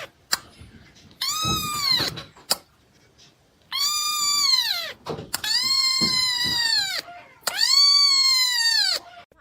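A cat meowing loudly in four long, drawn-out calls, each rising and then falling in pitch, with short pauses between them.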